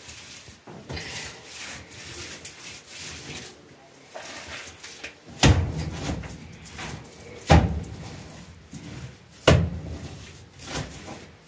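Wet mud being smeared by hand over a clay stove: soft rubbing and scraping, with three sharp slaps about two seconds apart in the second half.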